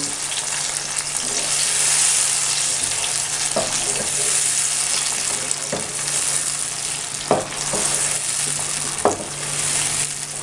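Chicken, tomato paste and browned onions sizzling in hot oil in a non-stick wok while being stirred with a wooden spoon, which knocks against the pan a few times. A low steady hum runs underneath.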